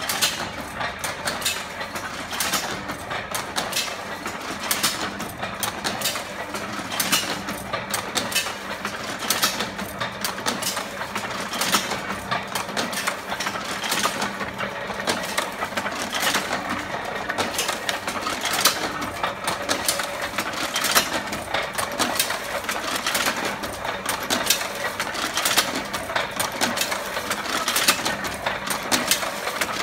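Waite and Savile die stamping press running, a continuous clatter of sharp mechanical clicks from its moving arms and linkages.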